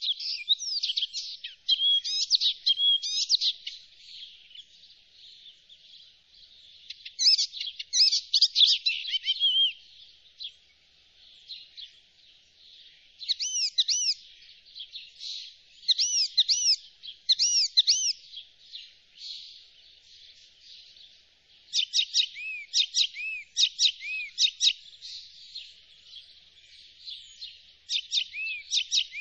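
Icterine warbler singing: phrases of quick, repeated high notes and chattering runs, each lasting one to a few seconds, broken by short pauses.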